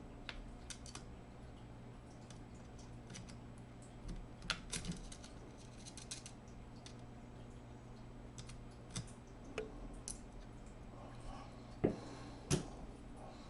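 Faint, scattered small clicks and taps of a tiny screwdriver and screws against a laptop's fan and case while working the little fan screws in, with two sharper knocks near the end.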